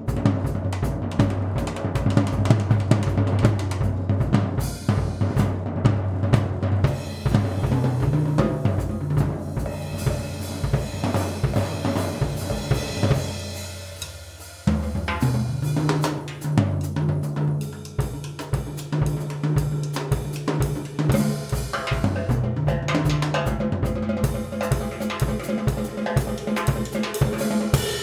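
Pearl drum kit played in a busy solo: bass drum, snare and cymbals struck densely, with low sustained notes held underneath. The playing thins and dies down about thirteen seconds in, then comes back in hard a second or so later.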